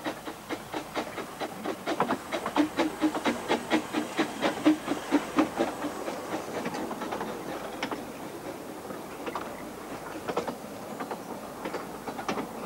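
A Kerr Stewart 0-4-2 narrow-gauge steam locomotive built in 1921 works past with quick, regular exhaust chuffs, loudest in the first few seconds. Its carriages then roll by with wheels clicking over the rail joints.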